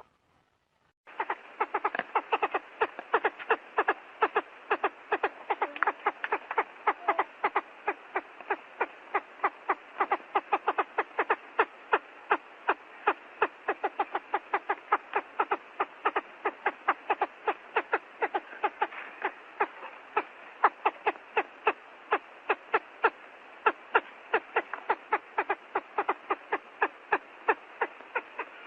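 Big quail calling: a long, fast run of short, even notes, several a second. It starts about a second in, after a brief silence.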